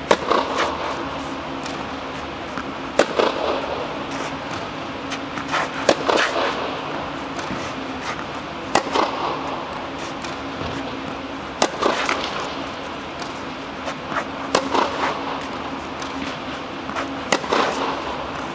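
Tennis balls struck with a racket in a steady drill: a sharp pop about every three seconds, each followed by lighter ball bounces, echoing inside an air-supported tennis dome over a steady low hum.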